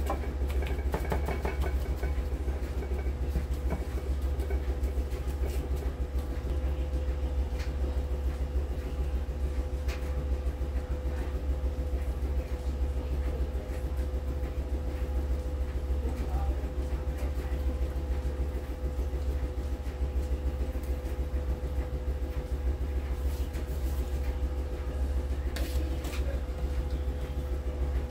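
A steady low mechanical rumble with a constant hum that does not change, and a few faint clicks on top.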